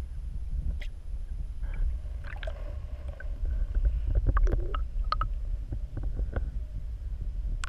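Muffled low rumble of shallow seawater surging, heard underwater, with scattered small clicks and taps from about two seconds in.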